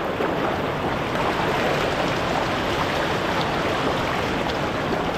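Shallow beach surf washing and splashing close to the microphone, a steady rushing noise.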